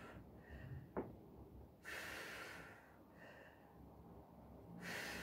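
A woman breathing hard through her mouth from the effort of leg raises: two long breaths out about three seconds apart, with softer breaths between them. A short sharp click comes about a second in.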